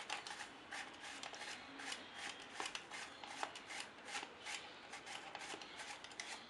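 Peeled raw nendran banana (plantain) pushed back and forth over the blade of a hand-held slicer, cutting thin chip slices with a quiet scraping stroke about three times a second.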